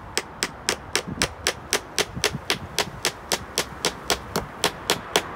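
Hammer driving a 3-inch nail through pallet-wood slats: about twenty quick, evenly spaced strikes, roughly four a second.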